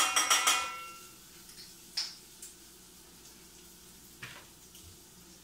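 A metal teaspoon tapped rapidly five or six times against the rim of a stainless steel pot, each tap ringing, while adding minced garlic. A single sharper click follows about two seconds in and a fainter knock a little after four seconds.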